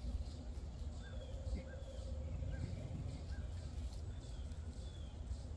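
Faint, short animal calls repeating roughly once a second over a low steady outdoor rumble.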